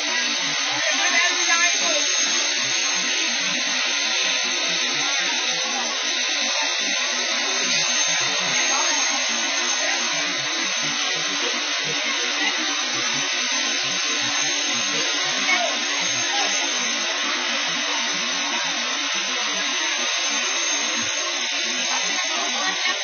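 Steady whirring hiss of running machinery, unbroken throughout.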